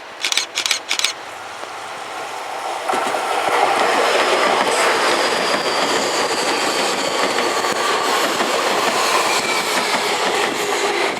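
Tokyu 5050 series electric train passing at speed over a level crossing: a building roar of wheels on rail with clickety-clack over the joints and a faint high whine. A few short hisses come just after the start, before the roar builds.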